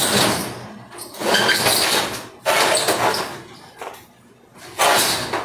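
Corrugated steel roll-up shutter door rattling as it is pulled down, in several loud runs of about a second each with short pauses between.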